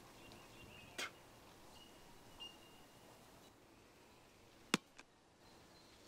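Quiet outdoor ambience with faint high chirping, broken by a sharp click about a second in and a louder sharp knock, followed at once by a smaller one, about three-quarters of the way through.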